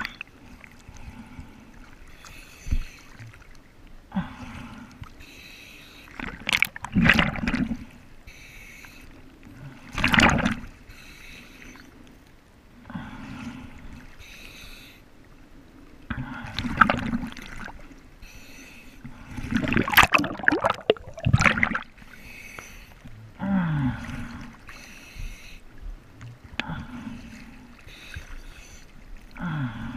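Choppy sea waves slapping and washing over a camera held at the water's surface: loud sloshing surges every few seconds, with quieter lapping water between them.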